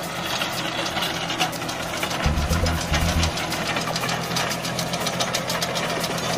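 John Deere tractor's diesel engine working under load, driving a Shaktiman rotary tiller whose spinning blades churn dry stubble soil with a fast, even clatter.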